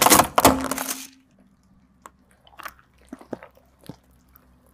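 A car tyre crushing a plastic rainbow spring toy: about a second of loud crackling and crunching as the coils snap under the wheel. A few faint, separate clicks and pops follow.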